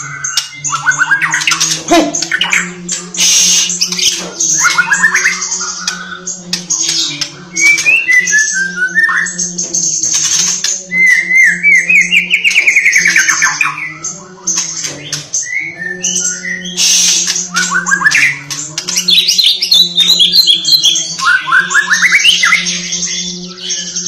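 White-rumped shama singing loud, varied phrases of whistles, warbles, rapid trills and harsh chattering clicks, with brief pauses. A steady low hum runs underneath.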